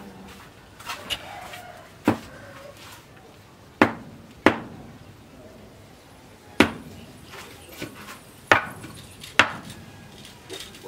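Long bamboo handle of a rabbit-ears knife knocked down butt-first, about six sharp wooden knocks at uneven intervals with a couple of lighter ones near the start, driving the handle onto the blade's freshly fitted tang.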